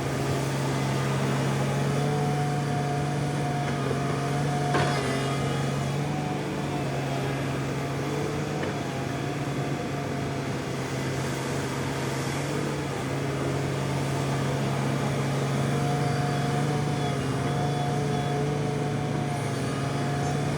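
Excavator and dump truck machinery running: a steady hum with a higher whine that fades in and out, and a single click about five seconds in.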